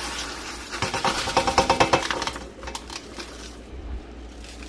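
Dry freeze-dried pasta and vegetable pieces pouring out of the meal pouch into a pot of just-boiled water, a quick dense rattle with the pouch crinkling. The rattle is loudest a second or two in, then thins to a few light ticks as the last pieces shake out.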